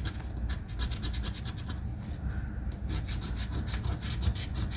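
Coin scraping the coating off a lottery scratch-off ticket in quick, repeated strokes.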